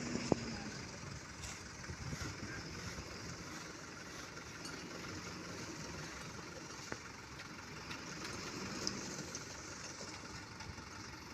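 An engine running steadily at idle, with a few sharp clicks and knocks over it.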